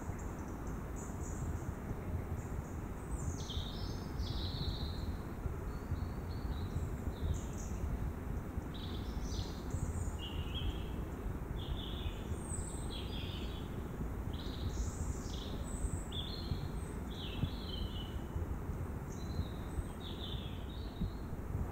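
Songbirds calling in woodland, a string of short high chirps and trills, over a constant low crackling and popping noise. The crackle is a recording fault, from either a faulty Panasonic HC-W850 camcorder or a Rode VideoMic Pro that may not be compatible with it.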